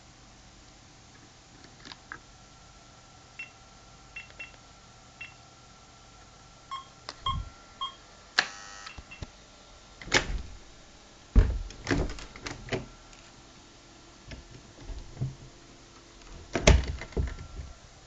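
Homemade keypad door-lock controller beeping as a password is keyed in: four short high beeps, then three lower two-note beeps and a half-second buzz. After that the door's lever handle and latch clunk several times, with a louder knock near the end.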